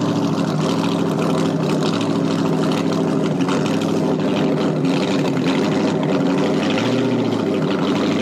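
Large open-exhaust inboard engine of a small speedboat running at low speed, a steady, loud engine note with even harmonics.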